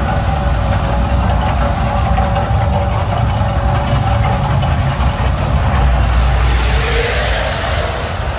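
Mirage volcano show erupting: a loud, deep, steady rumble with the rushing of gas fire jets and fireballs.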